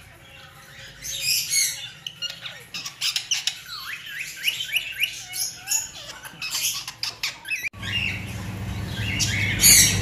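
Several caged aviary birds chirping and squawking: many short rising chirps mixed with harsher squawks. Near the end a low steady hum comes in.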